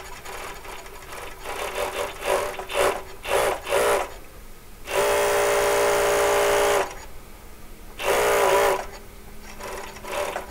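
Zoje C5000 industrial coverseam sewing machine stitching fabric under pedal control: several short bursts of stitching, then a steady run of about two seconds in the middle, and one more short burst near the end.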